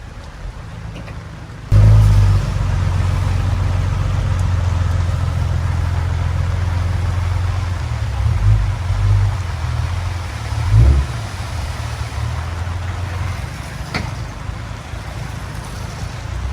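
Heavy diesel earthmoving machine running steadily. It jumps suddenly louder about two seconds in and has a few brief surges, with a sharp clank later on.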